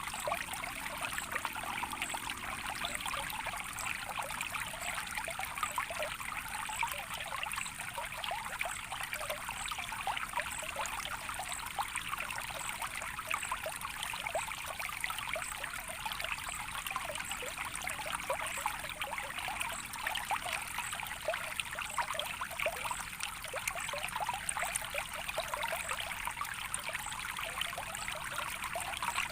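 Small stream of water trickling steadily, a light, even splashing with no deep rush.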